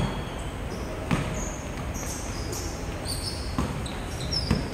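A basketball thudding on the indoor court floor about three times, with short high squeaks between the bounces.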